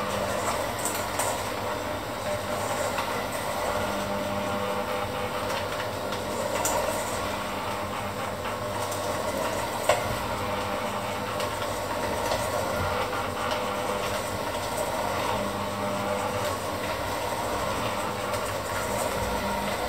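Electric hand mixer running steadily, its beaters whisking in a stainless steel bowl, with a few sharp clicks, the loudest about halfway through.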